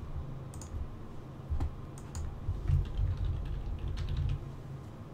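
Typing on a computer keyboard: irregular keystroke clicks as a word is typed, over a low steady hum.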